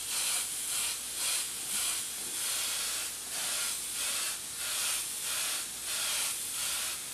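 Airbrush spraying a fine mist of transparent paint onto a T-shirt: a high hiss of air and paint that swells and eases about twice a second.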